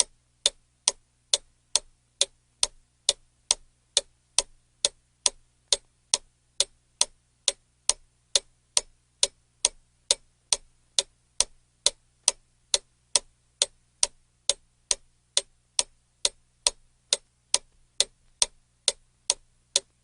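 A clock ticking steadily: sharp, even ticks at a little over two a second.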